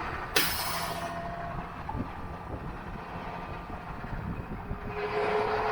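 Heavy work truck running on the road, a steady engine drone with a short sharp hiss about half a second in.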